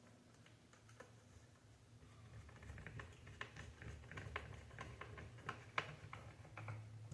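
Light, scattered clicks and taps of a screwdriver and small screws on the Xbox Series S's parts while screws are put back in, coming thicker after about two seconds in.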